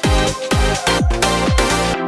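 Electronic dance music with a steady kick drum about twice a second under sustained synth chords.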